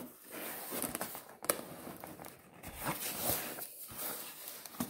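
Black cardboard product box being handled and shifted on a wooden tabletop: rustling and scraping of card, with a sharp tap about a second and a half in.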